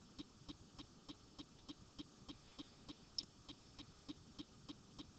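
Near silence: faint room tone with a soft, regular ticking about three times a second.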